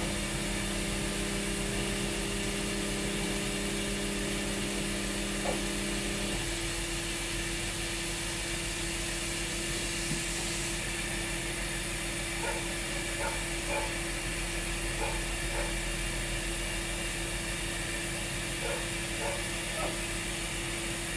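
Microwave oven defrosting on low power, a steady electrical hum whose lower tone cuts out about six seconds in as the power cycles. Faint light clicks from about twelve seconds on.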